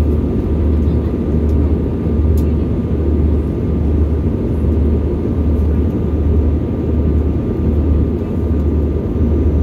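Jet airliner cabin noise in flight: a steady low rumble of engines and airflow, with a slow, even throb in the deep bass.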